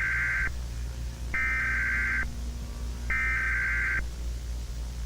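Emergency Alert System SAME header: three short bursts of a buzzing digital data tone, about a second apart, each just under a second long. This is the coded preamble that opens an EAS alert and carries the alert's type and the areas it covers.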